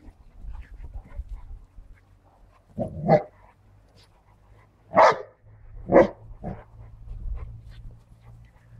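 Dogs at rough play, barking: four short, sharp barks about a second apart in the middle, with smaller yaps and scuffling between.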